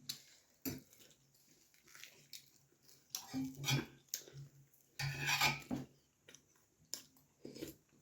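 Close-up eating sounds: mouth sounds of chewing puri and tarkari, mixed with small clicks of dish and utensil. The loudest of them comes about five seconds in.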